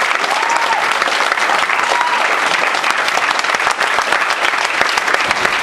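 Dense, steady applause from a roomful of people giving a standing ovation.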